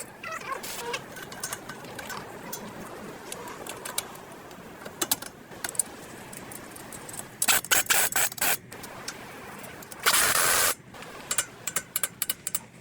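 Workshop repair noise: scattered metallic clicks and clinks of tools and parts, and about ten seconds in a short, loud burst of hiss.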